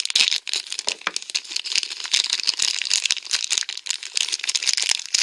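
Crinkly plastic wrapper of a Num Noms blind bag being unwrapped by hand: a dense, continuous run of crackles and rustles.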